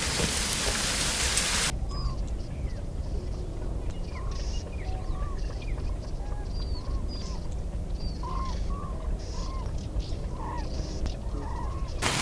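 Birds chirping: many short calls, some rising and falling in pitch, over a low steady rumble. A loud even hiss cuts off suddenly about two seconds in and starts again at the very end.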